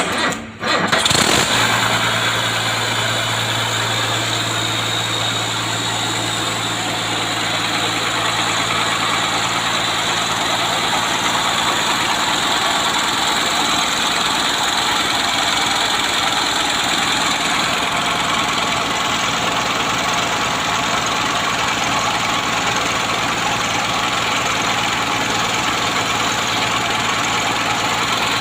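A heavy machine's engine starting about a second in, then running steadily.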